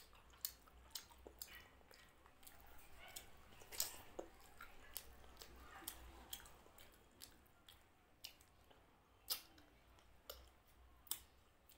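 Quiet eating sounds: wet, sticky mouth clicks and chewing as mutton curry is pulled apart with the fingers and eaten, with a dozen or so sharp clicks scattered irregularly through it.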